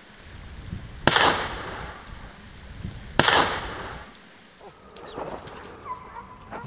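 Two shotgun shots about two seconds apart, each sharp crack trailing off in a short echo.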